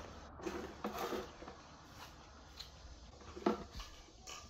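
Handling noise: a few light knocks and rustles as a plastic electric leaf blower and its cord are picked up and moved on a hard floor, with the sharpest knock about three and a half seconds in.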